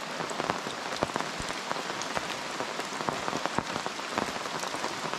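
Steady rain falling on jungle foliage, with many distinct drops striking a tarp overhead.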